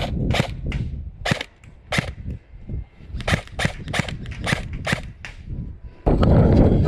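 Airsoft electric rifle firing in semi-auto: a string of sharp single shots, some in quick runs of three or four a few tenths of a second apart, with pauses between. About six seconds in, a loud rushing noise like wind or handling on the microphone cuts in suddenly.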